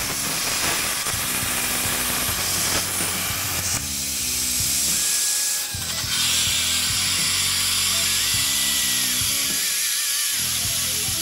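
Harbor Freight Titanium 65 plasma cutter with a fine-cut tip, hissing as the CNC-driven torch cuts through steel plate, with the arc cutting out a few seconds in. Background music plays underneath.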